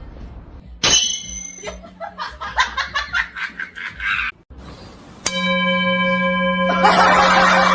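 A bell-like tone, struck sharply about five seconds in and ringing on steadily, after a short chime and a run of quick rhythmic sounds; a loud rough noise joins the ringing near the end.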